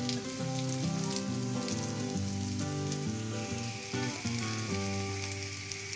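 Background music of held notes that change every half second or so, over the hiss and scattered crackle of food sizzling in a pan.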